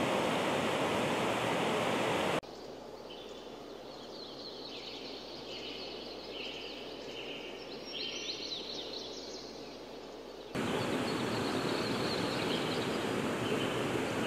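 Rushing river water flowing over rocks, a steady loud hiss of noise. About two seconds in it cuts abruptly to a quieter stretch with high chirping calls, and the rushing water cuts back in abruptly about ten seconds in.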